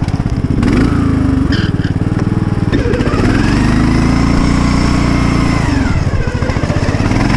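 Engine-swapped Poulan riding lawn mower's engine running under load as it drives through snow. The revs climb about three seconds in, hold steady, then drop back about six seconds in.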